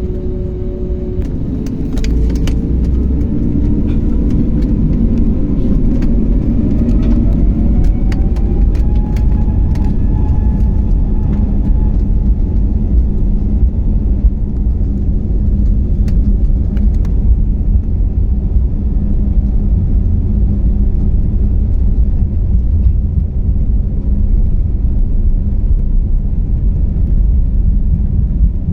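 Airliner's jet engines heard from inside the cabin: a whine rises about a second in and climbs for around ten seconds before levelling off over a heavy, steady rumble, with a few rattles in the first half.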